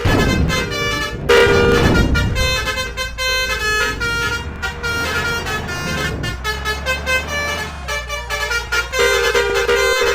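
Bus 'telolet' basuri multi-trumpet musical horns playing quick chiming tunes, with a louder held horn blast a little over a second in. Heavy vehicles pass close, near the start and again around the middle.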